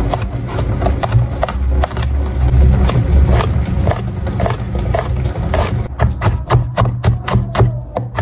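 Kitchen knife mincing garlic on a wooden cutting board: repeated short chopping strikes, coming quicker in the second half at about four to five a second. Soft background music plays underneath.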